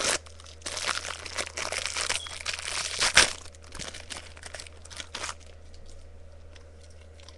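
Bag crinkling and rustling as it is rummaged through by hand, with one sharper crackle about three seconds in; the handling stops after about five seconds.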